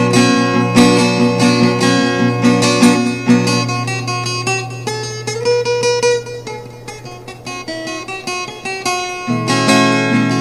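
Instrumental music of plucked strings, a guitar-like melody in quick picked notes over a held low tone. It thins out and softens in the middle, then comes back fuller near the end.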